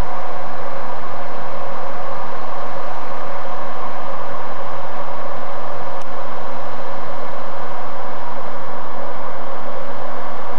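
A pair of New Zealand EF-class electric locomotives hauling a freight train slowly past, giving a steady hum with a constant drone and a rushing noise over it. A faint click about six seconds in.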